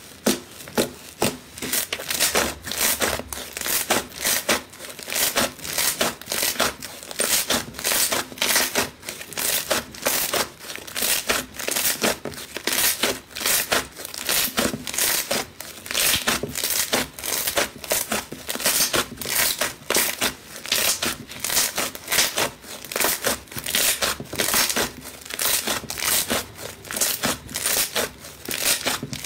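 Thick, dough-like crunchy slime being kneaded and squeezed by hand, giving a dense, continuous run of small crackles and pops, several a second.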